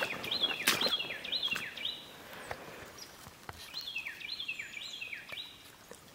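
A songbird singing two runs of about five quick repeated notes, each note dropping in pitch at its end, with a pause of nearly two seconds between the runs. A few crackling footsteps in dry leaves sound in the first second.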